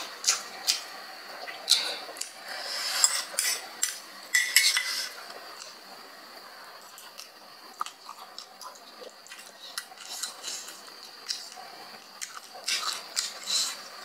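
Metal fork clinking and scraping against a plate and tray as noodles are picked up and eaten close to the microphone, with short clicks and clatters that come thickest in the first five seconds and again near the end.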